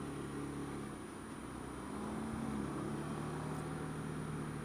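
Honda Dio scooter's engine running at low speed while creeping through slow traffic: a steady low hum that eases off about a second in and picks up again about two seconds in.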